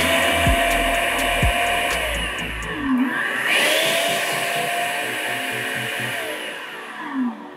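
Food processor motor running as it chops a green pepper, basil and lime-juice dressing, cutting off about three seconds in.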